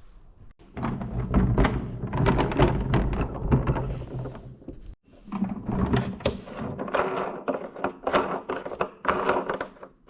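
A dense run of knocks, clunks and rattles from parts being handled and fitted together during assembly. It comes in two stretches, with a brief break about five seconds in.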